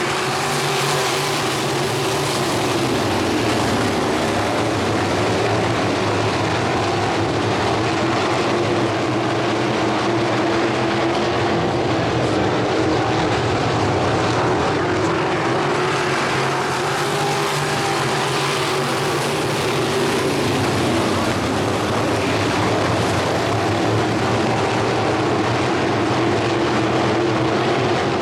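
A pack of crate sprint cars' V8 engines running hard together on the track, a dense continuous engine noise whose pitch rises and falls as cars sweep past.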